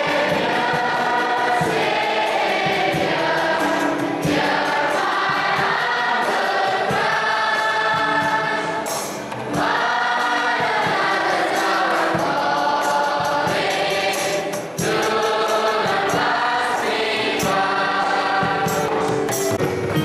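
Many voices singing a hymn together, accompanied by a digital piano, with two short pauses between sung lines.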